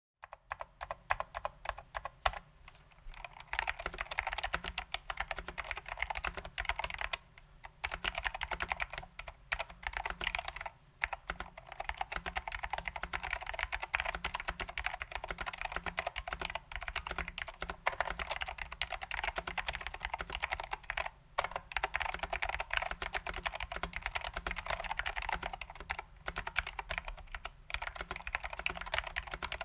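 Continuous typing on a custom 60% keyboard with lubed SKCM Salmon Alps switches and ALPS doubleshot keycaps in a BBOX 60 case: a dense, fast patter of key clicks, broken by a few short pauses.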